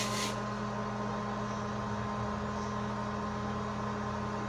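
Steady low electrical hum made of a few fixed tones, with no other distinct sound.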